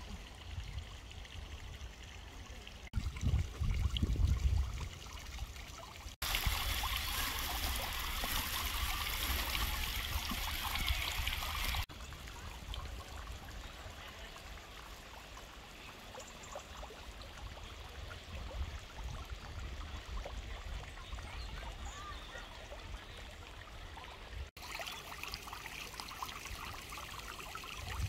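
Outdoor ambient noise from a series of short takes, changing abruptly several times. A low rumble runs throughout, stronger for a couple of seconds near the start, and a louder steady rushing hiss fills the middle stretch.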